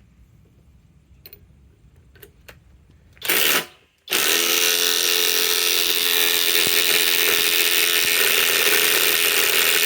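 Cordless impact wrench blipped briefly about three seconds in, then hammering steadily from about four seconds in on a fastener that will not break loose.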